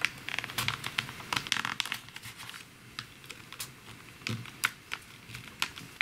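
A folded sheet of paper crinkling and crackling as hands fold it and press the crease flat. The crackles are busiest in the first two seconds, then come more sparsely.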